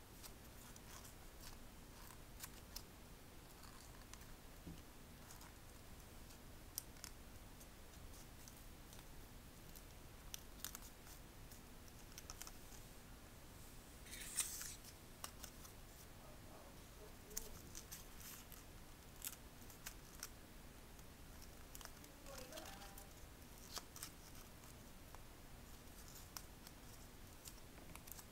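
Faint crinkling and creasing of origami paper being folded by hand: scattered small crackles and clicks, with one brief louder rustle about halfway through.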